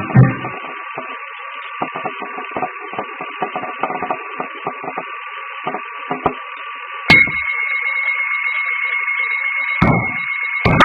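Narrow-band, radio-like static with a steady tone held under it and scattered crackles. About seven seconds in, a click brings in a second, higher steady tone.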